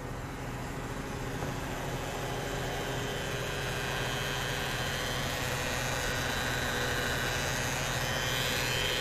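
XCMG QY30K truck crane's diesel engine running steadily, slowly getting louder.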